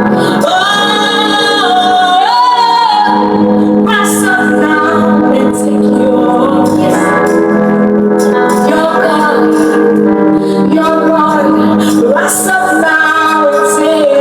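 Worship song: a woman singing long, held phrases over sustained instrumental chords.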